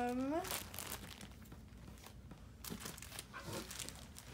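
Plastic zip-top bags crinkling as they are handled and pulled from a box, in irregular scratchy rustles. A short hummed voice sound, steady and then rising, comes at the very start.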